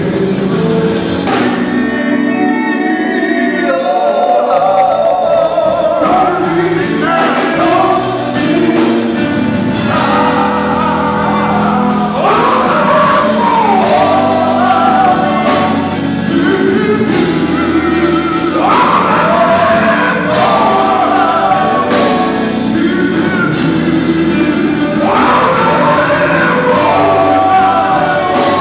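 Live gospel music: a lead singer and group vocals over electric bass, drums, keyboard and guitar, through a PA in a large hall. About two seconds in, the bass and drums drop away for a couple of seconds, leaving mostly the voices, then come back in.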